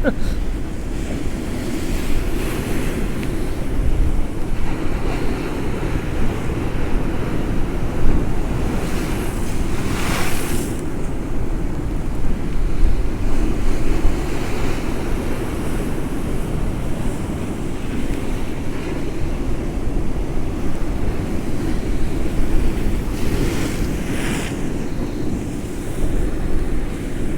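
Storm waves surging against a sea wall, with strong gusting wind buffeting the microphone in a constant low rumble. Two louder rushes of splashing spray stand out, about ten seconds in and again near the end.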